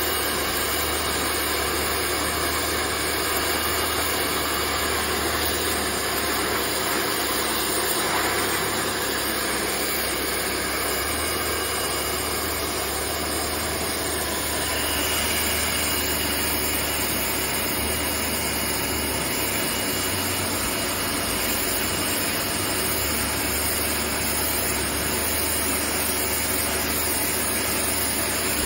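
Pressure washer running steadily, its wand's jet spraying water onto the base of a storage tank and the ground beneath it.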